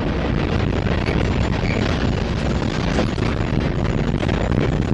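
Freight train of covered hopper cars rolling past close by: a loud, steady rumble of steel wheels on the rails with light clicks from the wheels and couplers.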